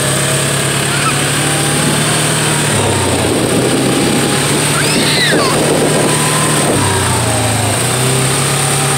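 Quad (ATV) engine running as it is ridden along a street. The engine note drops about three seconds in and comes back up near seven seconds, as the throttle is eased off and opened again.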